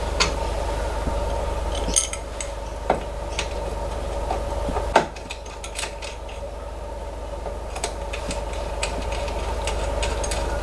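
Scattered light metallic clinks and taps of hand tools and metal parts being handled while a filament holder is fitted to a 3D printer, over a steady machine hum that drops in level about two seconds in and again about halfway through.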